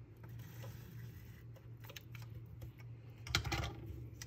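Bic Wite-Out correction tape roller drawn across a planner page, making light scattered clicks, with a cluster of louder sharp taps about three seconds in. A steady low hum runs underneath.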